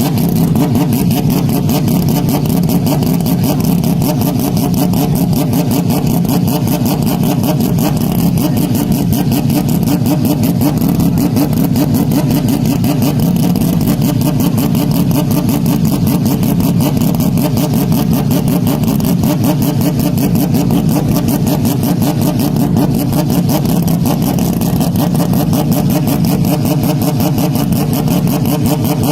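Very loud, distorted engine drone that holds steady throughout, with no rise or fall in pitch or level.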